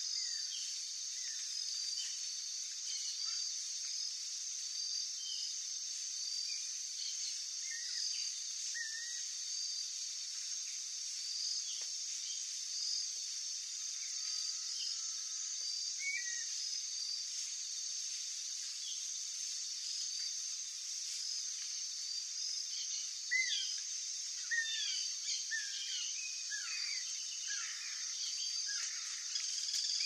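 Insect chorus: a steady, high, pulsing drone with many small birds chirping and whistling over it. The bird calls grow busier in the last several seconds.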